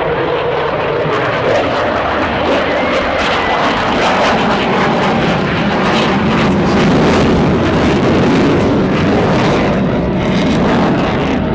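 Eurofighter Typhoon's twin EJ200 jet engines in full reheat passing overhead: a loud roar with a ragged crackle, swelling to its loudest about seven seconds in.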